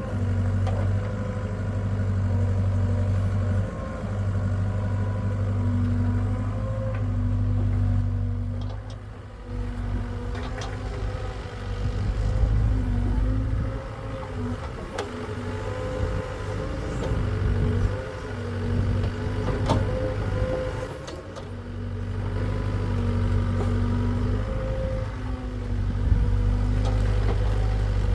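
Hitachi excavator's engine running under changing load, its hum rising and falling every few seconds, with a few short knocks.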